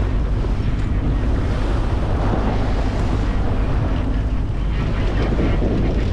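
Strong wind buffeting the microphone on a sailboat under sail, a steady loud rumble, with water rushing along the hull beneath it.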